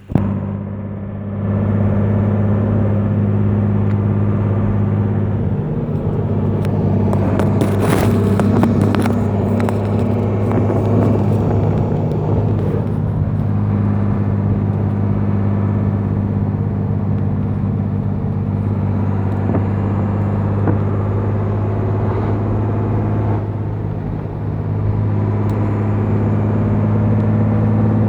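Mercedes-Benz 1319 truck's diesel engine running loud and steady, with a brief cluster of rattling knocks about eight seconds in.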